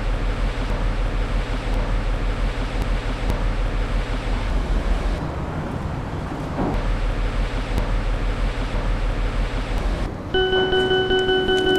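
Steady rumble of a running vehicle or traffic. Near the end a steady high pitched tone comes in and holds for about a second and a half.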